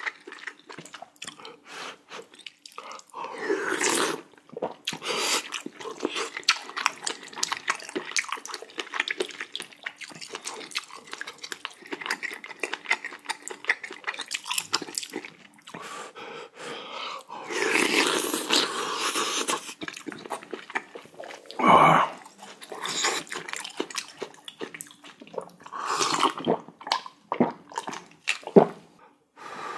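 Close-miked eating of spicy jjamppong noodle soup: wet slurps of noodles and broth and chewing, with many small clicks and a few longer slurps.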